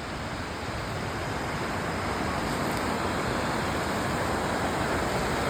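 Steady rushing of a flooded river, growing gradually louder.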